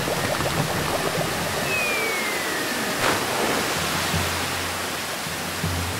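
Cartoon sound effect of a torrent of rushing water, with a falling whistle about two seconds in and a sudden hit just after three seconds.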